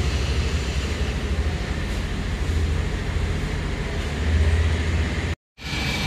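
A motorcycle engine idling steadily: a low, even running rumble with a fast flutter.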